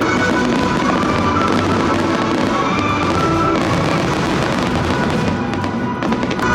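Fireworks going off in rapid, crackling succession over a show's music soundtrack.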